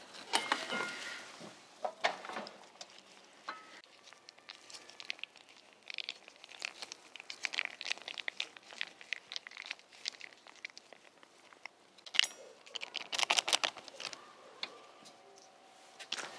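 Plastic sauce sachet crinkling and crackling as it is opened and squeezed out by gloved hands. The rustling comes in three bouts of dense crackles.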